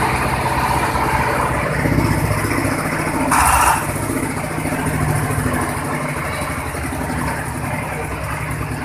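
Coconut coir decorticator running, driven by its single-cylinder diesel engine running steadily. About three and a half seconds in comes a short, loud rush of noise.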